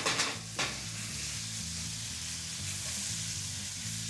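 String beans and sweet red peppers sizzling in hot oil in a stainless steel skillet on a gas burner, a steady hiss. A few sharp clicks come in the first second.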